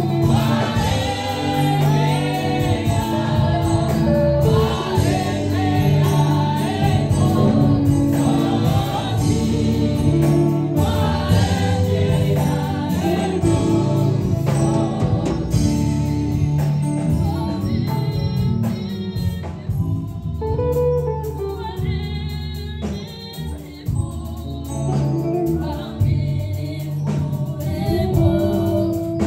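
Gospel worship music: a group of voices singing together over held low notes, easing off briefly about twenty seconds in before building again.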